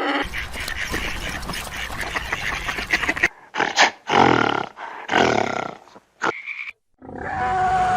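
Big cat roaring and growling: a long rough call, then a run of four shorter calls about a second apart, and a longer, steadier call beginning near the end.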